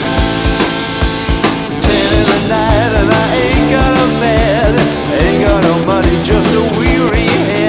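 Early-1980s rock band studio recording: drums keep a steady beat under bass and guitars, and a wavering, bending lead melody comes in about two seconds in.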